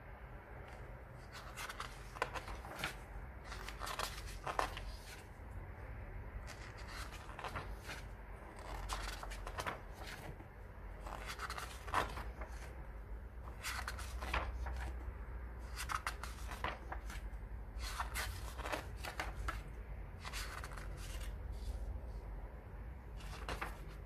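Pages of a graphic novel turned by hand: paper rustling and flicking in short swishes that come in clusters a few seconds apart.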